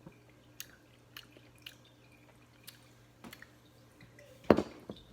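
A person sipping and swallowing beer, with small wet mouth clicks every half second or so, then one much louder thump about four and a half seconds in, followed by a smaller one.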